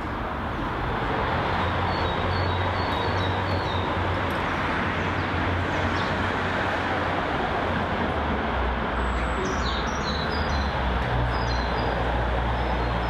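Steady rushing background noise, a little louder from about a second in, with a low rumble under it and a few short high bird chirps near the start and again near the end.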